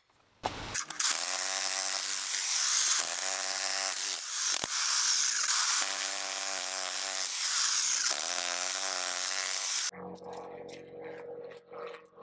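Titan electric demolition breaker hammering into concrete with its chisel point, working around a stuck point bit to free it. It starts about a second in, runs steadily for about nine seconds, then cuts off, followed by a few knocks of loose rubble being handled.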